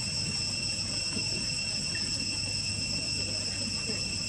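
Steady high-pitched drone of an insect chorus, several unbroken tones held at a constant level over a low background rumble.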